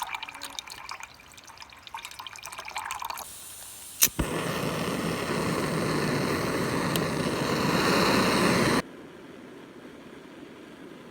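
Water dripping and trickling, then, after a sharp click about four seconds in, a steady pour of water that grows slowly louder for about four and a half seconds and stops suddenly.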